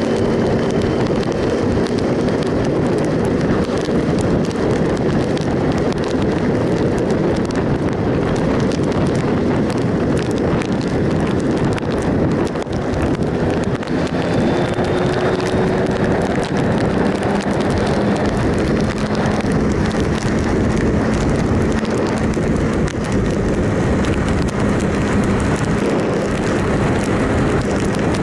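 Wind rushing over the microphone with the 2007 Triumph Sprint ST 1050's three-cylinder engine running steadily underneath while the motorcycle is ridden at road speed.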